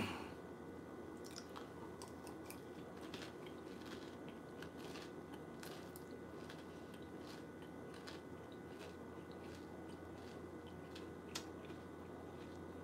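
A person chewing a mouthful of Trix cereal soaked in red wine: faint, irregular crunching, with a sharper click about eleven seconds in.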